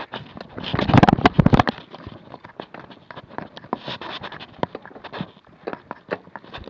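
Irregular clicks, knocks and crunches of a mountain bike and footsteps on a rocky, gravelly trail, with a loud burst of clattering about a second in.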